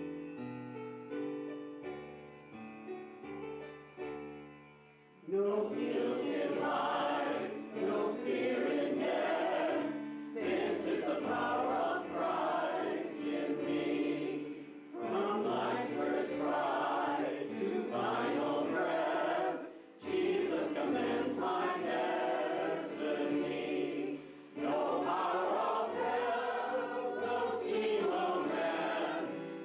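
Church hymn: a keyboard plays alone for about five seconds, then a group of voices comes in singing with it, in phrases with short pauses between them.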